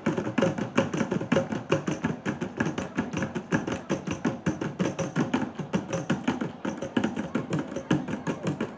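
Sri Lankan folk drums, two double-headed barrel drums, played in a fast, steady rhythm of many strokes a second, accompanying a folk dance.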